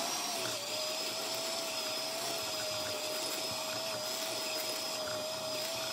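Electric hand mixer running at one steady speed, its beaters mixing an egg into creamed butter and sugar: a constant motor whine over a hiss.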